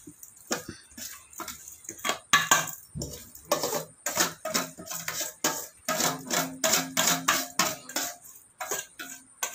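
Metal spoon scraping and clinking against an aluminium pot in quick, irregular strokes, stirring chili and garlic frying in oil.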